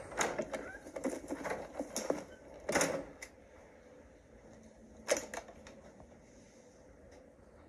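Irregular clicks and taps from a film soundtrack played back in a room, dense for the first three seconds, with two sharper, louder clicks about three and five seconds in, then only faint hiss.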